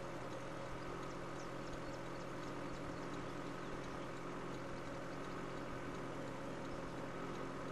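Safari vehicle's engine running steadily at idle, an even hum.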